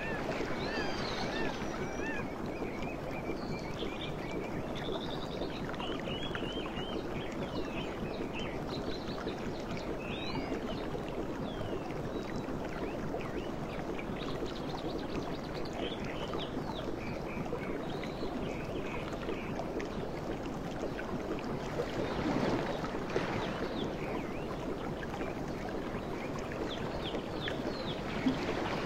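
Several birds calling and chirping, with short warbling and whistled notes most frequent in the first part, over a steady low rushing background. The background swells briefly louder a little past two-thirds of the way through.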